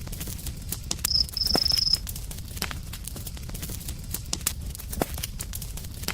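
Campfire crackling, with scattered sharp pops over a low steady rumble. About a second in, a cricket trills for about a second, high-pitched and louder than the fire.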